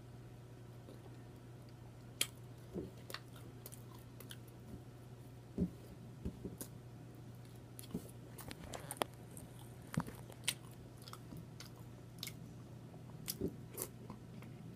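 Close-miked chewing with wet mouth smacks and lip clicks while eating, coming irregularly, over a steady low hum.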